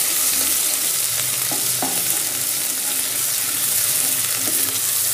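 Onions and ginger-garlic paste sizzling in hot oil in a pot with a steady hiss, stirred with a wooden spoon that scrapes against the pot now and then.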